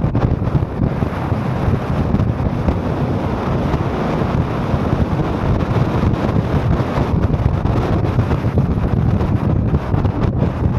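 Car driving along a winding road: steady engine and tyre rumble, with wind buffeting the microphone.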